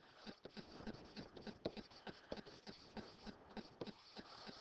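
Faint, irregular ticks and taps, a few a second: a stylus tapping and scratching on a digital writing surface as handwriting is drawn.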